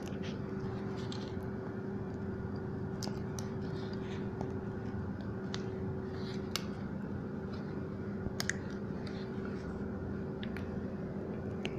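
Light, scattered clicks and taps of a small tool and fingers working on a tablet's circuit board and ribbon-cable connectors, over a steady background hum.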